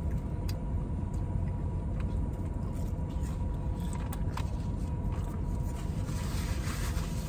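Steady low rumble of a car idling, heard from inside the cabin, with a faint steady hum and a few soft clicks.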